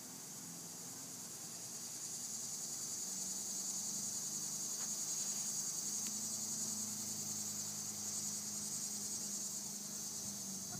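A steady, high-pitched chorus of insects, swelling a little louder in the middle, with a faint low hum underneath.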